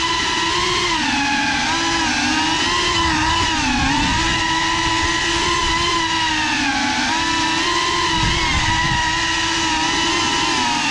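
Cinelog 35 FPV cinewhoop drone on a 6S battery in flight, its motors and propellers whining, the pitch rising and dipping as the throttle changes.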